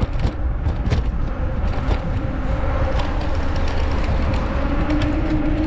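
Wind rumbling on the microphone with road noise from riding along a paved street, scattered with small clicks and knocks. A faint steady hum comes in near the end.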